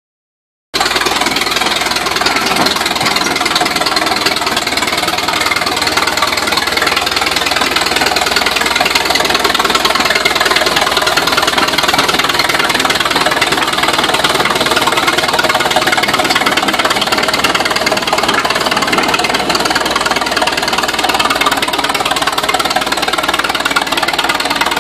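Caterpillar Twenty-Five crawler tractor's four-cylinder gasoline engine running steadily as the tractor drives, with its steel tracks clanking. The sound starts abruptly under a second in.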